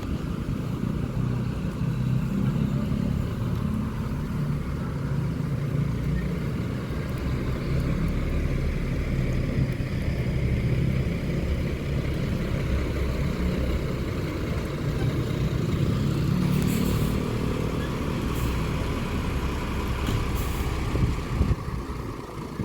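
Large diesel bus engine running with a steady low rumble, with a few short hisses near the end.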